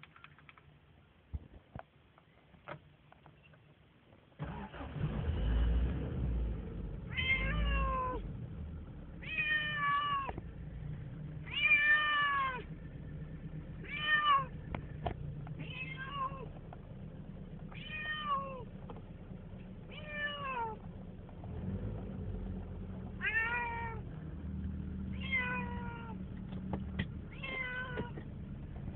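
Male domestic cat meowing over and over: about ten drawn-out calls, each falling in pitch at its end, roughly one every two seconds, starting about seven seconds in. The owner takes them for the tomcat calling to a female. A low rumble runs underneath from about four seconds in.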